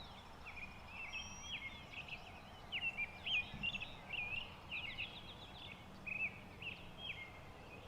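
Birdsong: a songbird singing quick, chirpy warbled phrases over faint background noise, loudest in the middle.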